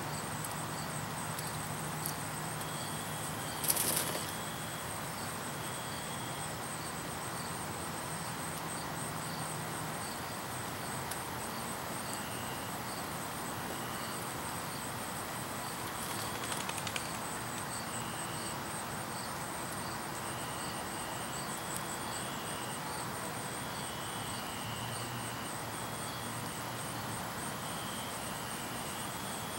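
Evening backyard ambience of insects: a steady, fast, high-pitched chirping with shorter repeated chirps beneath it. A brief rustling burst comes about four seconds in and is the loudest sound, with a smaller one around sixteen seconds. A faint low hum fades out about ten seconds in.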